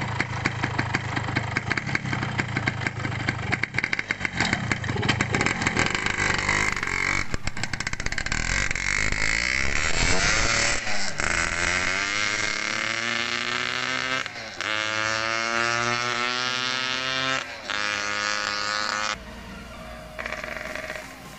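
Yamaha RX-King two-stroke single-cylinder motorcycle engine running with a rapid, crackling beat, then revving up in rising sweeps broken by gear changes as the bike pulls away; it runs again now that its lost ignition has been sorted out.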